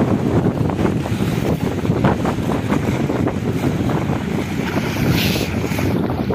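Heavy wind buffeting the microphone over choppy sea, with water rushing and slapping along a boat's hull; a brief sharper hiss about five seconds in.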